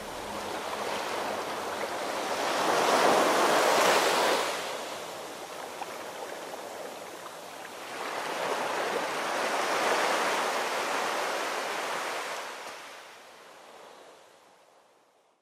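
Rushing, surf-like noise that swells twice, about six seconds apart, like waves washing in, then fades out near the end.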